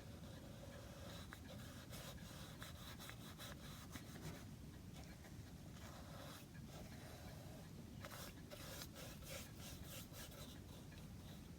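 Faint, irregular rubbing strokes of a weak Van Dyke crystals stain wash being worked onto bare wood.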